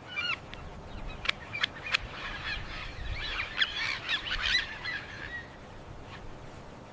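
Birds calling: many short, overlapping chirps and squawks that grow busiest in the middle and thin out after about five seconds.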